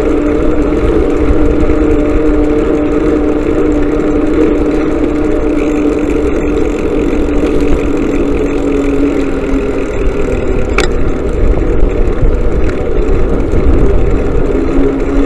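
Motorcycle engine running at a steady speed, its even hum over a low rumble of wind and road. A single sharp click sounds about eleven seconds in.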